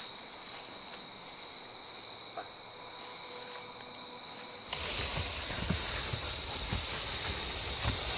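Steady high chirring of night insects. About four and a half seconds in it gives way to louder rustling and crunching of dry leaf litter with heavy footfalls as a deer carcass is dragged over the forest floor, the insects still going underneath.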